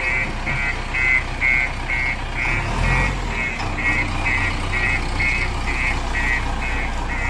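JCB 3DX Eco Xpert backhoe loader's warning alarm beeping evenly, about two and a half short high beeps a second, over the steady rumble of its diesel engine running as the machine moves.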